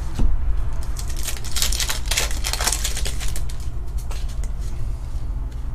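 Panini Fortnite trading cards being flipped through by hand: a quick run of light clicks and rustles as card edges slide and snap past one another, busiest from about a second in to past the middle. A steady low hum runs underneath.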